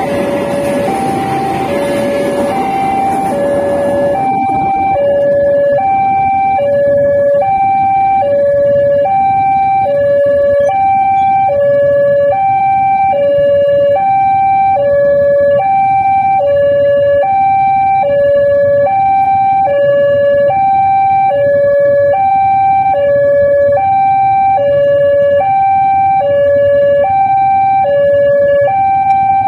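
Railway level-crossing warning alarm sounding an electronic two-tone chime, alternating steadily between a high and a low note about once a second each. In the first few seconds the rumble of a passing train fades out beneath it.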